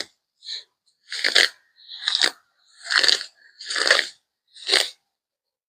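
Weeds being pulled and torn up by hand, a crisp crunching rustle of stems and leaves in short bursts about once a second.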